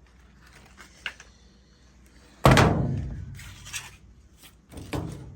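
Sheet-metal furnace cabinet handled: a loud clunk about halfway through with a short ringing decay, then a smaller knock near the end.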